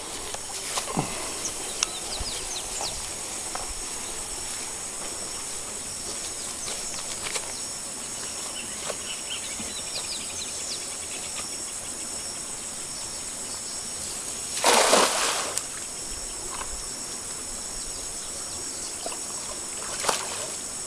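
A cast net landing on pond water with a splash about fifteen seconds in, and a smaller splash near the end, over steady insect chirring.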